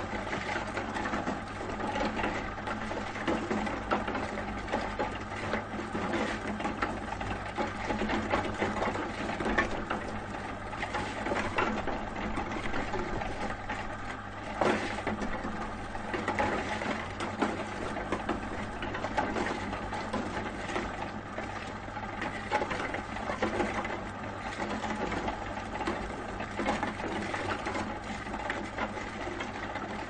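Ice being ground in an ice-grinding machine: a continuous dense rattle of many fast strokes over a steady low hum.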